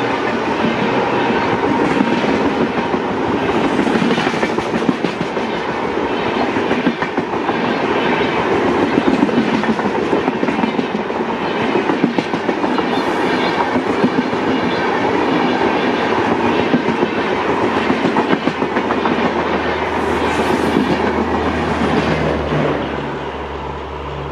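LHB passenger coaches of an express train rolling past at speed, wheels clattering rhythmically over the rail joints. The sound drops to a quieter rumble near the end.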